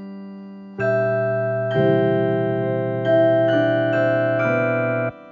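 Schulmerich Mark III Campanile digital carillon playing a melody: sustained notes and chords sound one after another about once a second, then all cut off at once shortly before the end.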